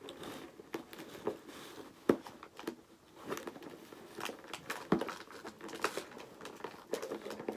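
Cardboard toy box and its packaging being pulled and worked apart by hand: irregular crinkling, rustling and small snaps, with a sharper snap about two seconds in.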